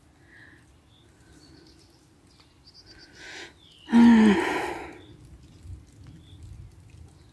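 A woman gives one short voiced sigh that falls in pitch, about four seconds in. Faint bird chirps sound now and then around it.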